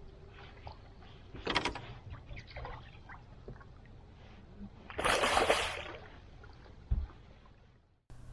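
Water splashing and sloshing at a fishing boat, with a short splash about a second and a half in, a longer, louder splash about five seconds in, and a low thump near the end.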